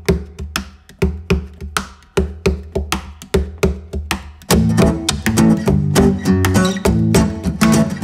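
Background music with a steady beat that grows fuller about four and a half seconds in.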